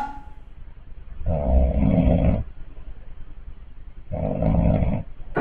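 A man snoring in his sleep: two snores about a second long each, roughly three seconds apart. He is wearing an anti-snoring chin strap, which is not stopping the snoring.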